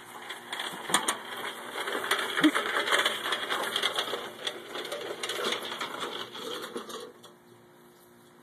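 Craftsman rear-tine tiller clattering and rattling as it is moved across the lawn, a dense run of metallic clicks that stops abruptly about seven seconds in.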